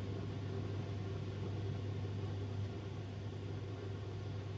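Johnson & Starley J25-32 Mk3 warm-air heater running, giving off a steady low hum with a fainter higher drone over a wash of air noise.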